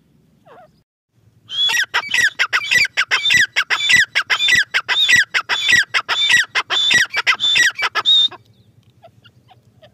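Grey francolin calling: after a quiet start, a fast run of loud, shrill, repeated notes begins about a second and a half in and stops abruptly near the end.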